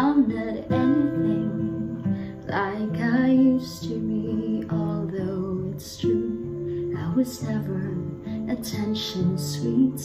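Acoustic guitar being played, chords strummed with the notes ringing on and changing every second or so.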